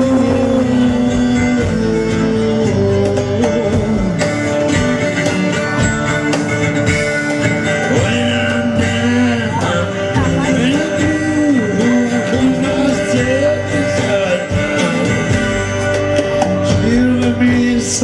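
Live band music: electric guitars, upright bass and drums playing a song, with a melody line wavering over the rhythm.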